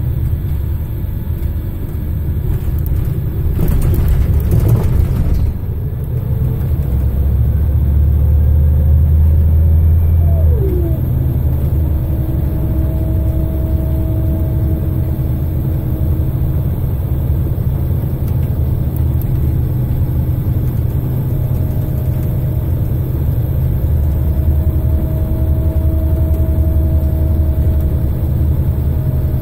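Scania L94IB bus with its DC9 five-cylinder diesel engine and ZF Ecomat 5HP600 automatic gearbox, heard from inside the cabin while driving and pulling away, with a low engine rumble and a whine from the gearbox. Engine pitch drops quickly about ten seconds in, as at an upshift, and a brief burst of noise comes about four seconds in.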